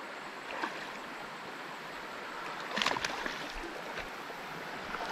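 Shallow creek water running steadily. About three seconds in there is a short splash from the hooked smallmouth bass fighting on the line at the surface.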